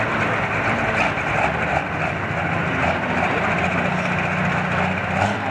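Light pro stock pulling tractor's turbocharged diesel engine running steadily at low speed while hooked to the sled before the pull.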